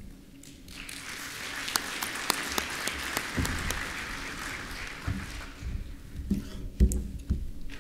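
Audience applauding for about five seconds, then fading out. After it come a few low thumps and knocks, the loudest near the end.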